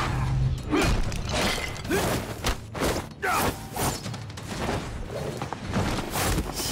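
Martial-arts fight sound effects: a rapid string of sharp hits and whooshes as two fighters trade close grappling blows.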